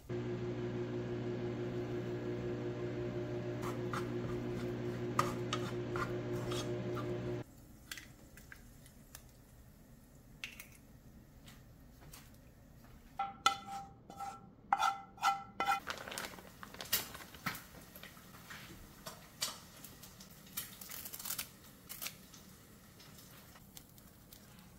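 Microwave oven running with a steady electrical hum for about seven seconds, then cutting off. A little later a run of about six short electronic beeps, followed by light clicks and clatter of a bowl and a plastic packet being handled.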